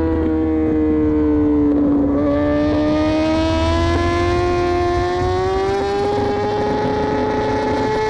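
A BMW S1000RR superbike's inline-four engine running at high revs, heard from a camera mounted on the bike. The pitch sags a little for about two seconds, then climbs slowly and steadily as the bike accelerates.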